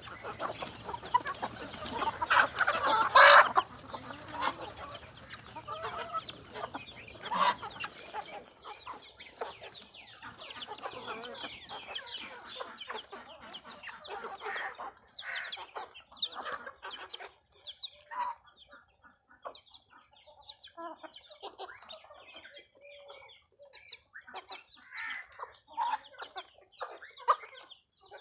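A flock of hens clucking, with a loud call about three seconds in; the clucking grows sparser after about eight seconds.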